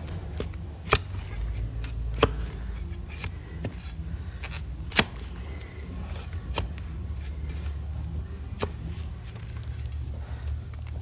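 A broad flat hoof-trimming blade paring and scraping a donkey's hoof sole, giving sharp cutting clicks every second or two, loudest about one and five seconds in, over a steady low rumble.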